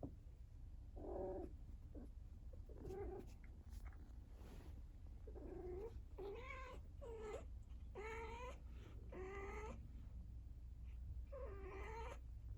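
A young cat in heat calling: a series of drawn-out yowls, each bending up and down in pitch, repeated every second or so with a pause in the middle.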